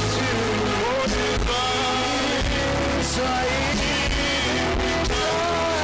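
Live church worship music: a band with a steady bass line and a voice singing a gliding melody over it.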